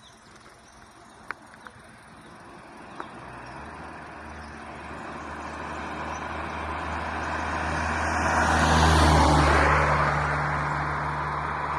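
A road vehicle approaching and passing: engine hum and tyre noise build gradually and are loudest about nine seconds in, then ease off while the engine hum lingers. A few sharp clicks sound in the first three seconds.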